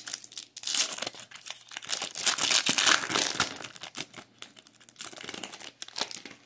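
Topps Merlin Chrome trading-card pack wrapper being torn open and crinkled by hand. It makes a dense run of crinkling, loudest in the first half and thinning out toward the end.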